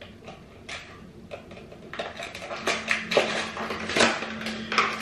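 Small hard objects clicking and clattering as they are handled, a string of short knocks that grows busier about halfway through, over a faint steady hum.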